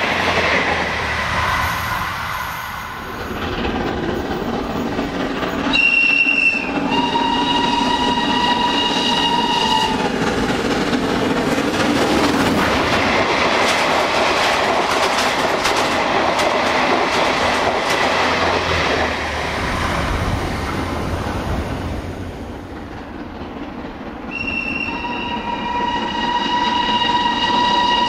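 Steam train running at speed: ex-GNR(I) compound 4-4-0 'Merlin' with its coaches rumbling and clattering over the rails. Its whistle sounds twice, about six seconds in and again near the end, each time a short high note then a steady lower chord held for about three seconds.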